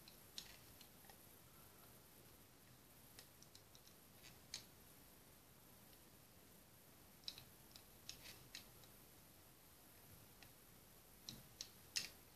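Faint, irregular clicks of yarn and fingers working the plastic pegs of a round knitting loom as stitches are worked, over near silence, with the sharpest click near the end.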